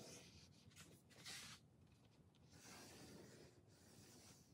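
Faint scratching of a pencil drawing a line along a thin wooden batten, in a few strokes, the sharpest about a second in.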